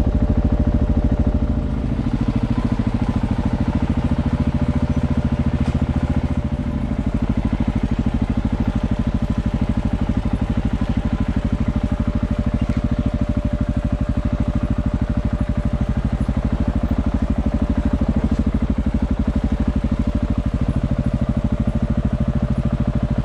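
Off-road motorcycle engine running at low, steady revs on a slow trail ride, easing off briefly about two seconds in and again near seven seconds.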